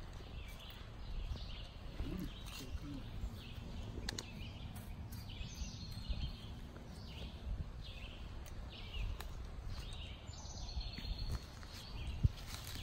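Footsteps swishing through grass and leafy undergrowth at a walking pace, about one step every three-quarters of a second.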